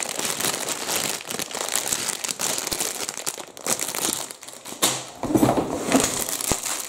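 Clear plastic bags full of LEGO bricks crinkling as they are squeezed and shuffled by hand, with many small clicks throughout.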